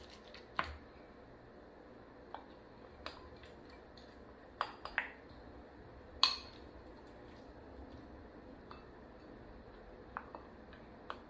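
Wooden spoon and small glass bowls knocking and clinking against a large glass mixing bowl as ingredients are scraped in: scattered sharp clinks, the loudest about six seconds in.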